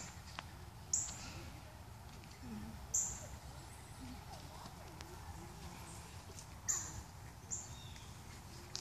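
Four short, sharp, high-pitched chip calls from an animal, a second or two apart at irregular intervals, over a faint outdoor background.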